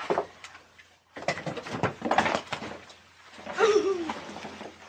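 Nylon camera backpack being handled: rustling, scraping and light knocks as a laptop is pulled out of its main compartment, with a short pitched sound that falls in pitch about three and a half seconds in.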